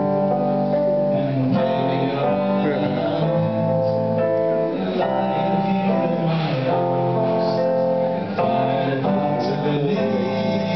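Live acoustic guitar and a Roland RD-300GX digital stage piano playing a song together, with a man singing over them.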